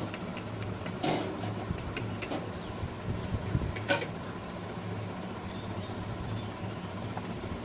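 A steady low hum like a fan, with scattered light clicks and scratches in the first half, the loudest about one and four seconds in, as kittens scrabble about in a plastic basket.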